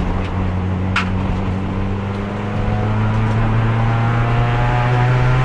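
Race car engine heard from the cockpit, pulling in fourth gear with the revs climbing slowly and steadily. The gearbox has lost third and won't shift at speed, so it is held in fourth. A short sharp knock sounds about a second in.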